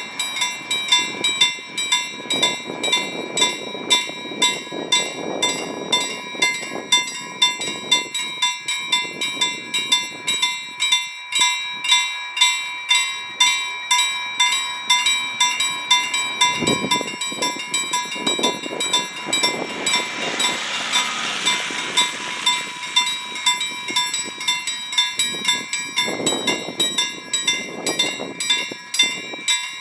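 Railway level crossing warning bell ringing, about two strokes a second, signalling that the crossing is closed for an approaching train. A brief rushing sound of a passing vehicle about twenty seconds in.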